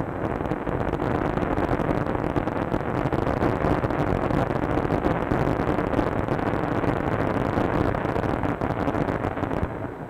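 Surf breaking and sea water rushing, a loud, steady wash of noise that stops shortly before the end.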